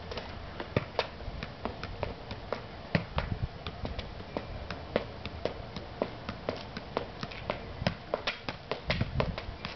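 Soccer ball being juggled: a steady run of quick taps, about three a second, as the ball is kicked up again and again to keep it in the air.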